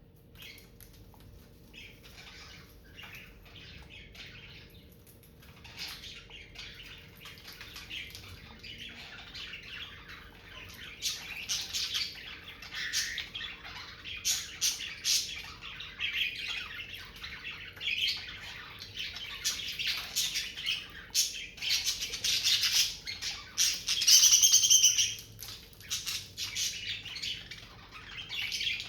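Budgerigars chattering in quick, dense chirps, quiet at first and growing louder, with the loudest call about three-quarters of the way through.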